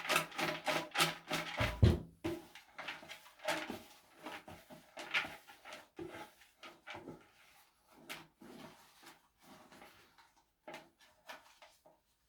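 Raffle draw ticking: a fast, regular clicking with a musical tone stops about two seconds in. It gives way to scattered clicks that slow down and fade out, as the draw winds down to the winning ticket.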